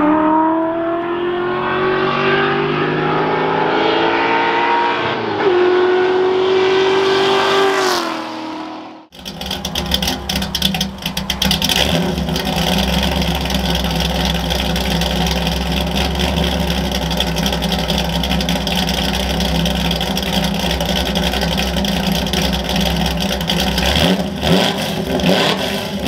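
Ford F100's small-block V8 on a straight-through Black Widow exhaust with an X-pipe, accelerating hard. Its note climbs, dips once about five seconds in as it shifts, climbs again and then cuts off abruptly about nine seconds in. A steady rumble with a fast pulse follows.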